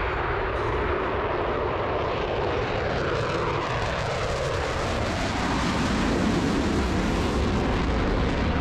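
Airplane engine running loud and steady as an aircraft flies past, its pitch shifting as it goes by.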